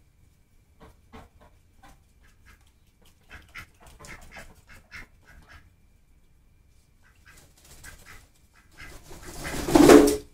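Ducks on a concrete floor: a run of short, soft sounds through the first half, then a loud flurry that builds and peaks near the end as a black duck flaps its wings.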